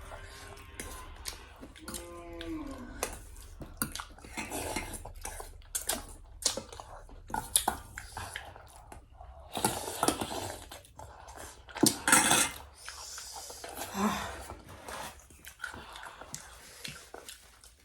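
Eating noodle soup close to the microphone: chewing, spoon and bowl clinks, and louder slurps about ten and twelve seconds in.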